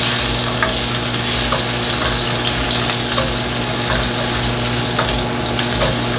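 Sliced ginger sizzling steadily in hot oil in a deep granite-coated wok over high heat, frying to brown and release its aroma. A spatula stirs it, with light taps and scrapes against the pan now and then.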